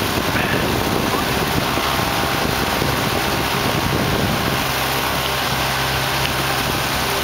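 Motorboat under way: wind buffeting the microphone and rushing water over a running engine. About halfway through, the buffeting eases and the engine's steady hum comes through more plainly.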